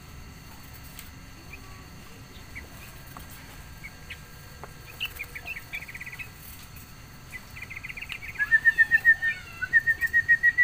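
Small birds chirping: scattered short chirps, then rapid trains of short, same-pitched chirps, loudest in two quick bursts near the end.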